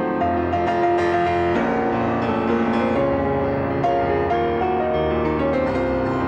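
Slow, gentle piano music with a low bass line, chords changing every second or so.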